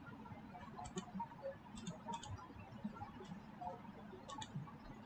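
Faint computer keyboard keys clicking irregularly as a username and password are typed, several keystrokes in quick pairs with short pauses between.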